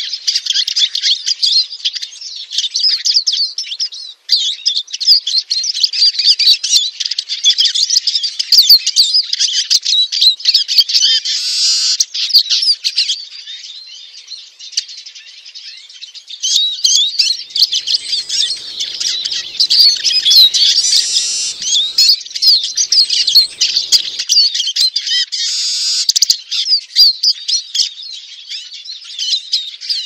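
Eurasian siskin song: fast, continuous twittering and chattering, high-pitched, with a short lull about halfway through.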